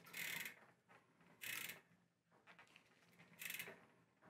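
A torque wrench ratchets faintly in three short spells as it is worked back and forth on a cassette lock ring tool, tightening the lock ring toward 40 newton metres.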